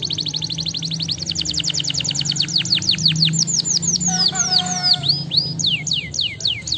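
Domestic canary singing: a very fast trill of falling notes that slows after about three seconds into separate downward-sweeping notes, with a short lower warbled phrase around four seconds in.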